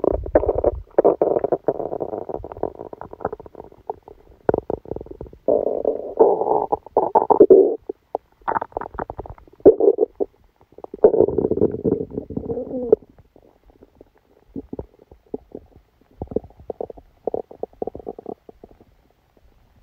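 A person's stomach and bowels gurgling and rumbling in irregular bursts, with the stomach aching after a meal. The gurgles grow fainter and shorter over the last several seconds.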